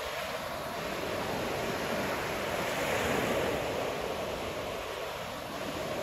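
Pacific surf washing onto a beach: a steady rush of breaking waves that swells to a peak about halfway through, then eases off.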